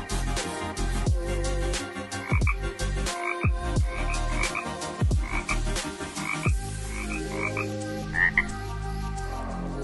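Background music with deep, falling bass-drum hits, over which short high chirps come in pairs, repeating several times from about two seconds in.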